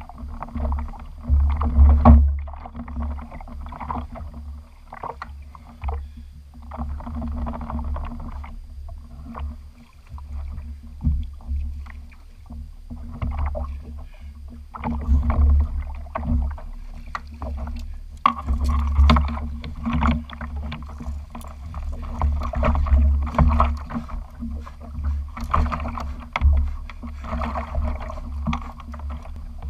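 Water splashing and sloshing around a kayak while a large Chinook salmon is fought to the landing net. Under it runs a low rumble of wind buffeting the microphone, with scattered knocks and clicks of gear and net handling.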